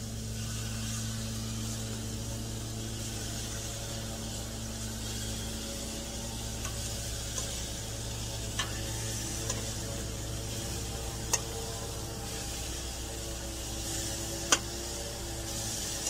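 Oil-marinated jumbo scallops sizzling on a hot gas grill grate as they are laid down one at a time with metal tongs. A few sharp metal clicks of the tongs against the grate or the steel bowl come several seconds apart, the loudest near the end.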